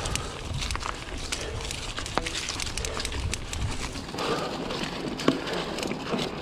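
2018 Giant Stance 2 mountain bike rolling along a leaf-strewn dirt trail: tyres crackling over dry leaves and twigs, with many scattered clicks and rattles from the bike. Wind rumbles on the microphone for about the first four seconds, then the crackling of the tyres comes to the fore.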